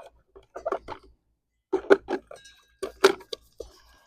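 Bird feeders being handled and scrubbed while washed out: irregular light knocks, taps and clinks, with two louder knocks about two and three seconds in.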